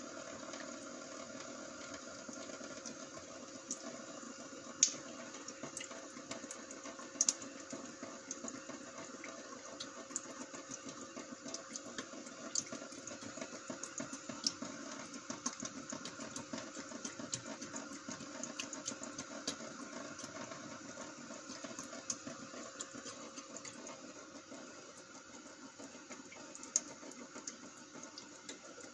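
Water running steadily, with scattered small splashes and clicks, the loudest about five and seven seconds in.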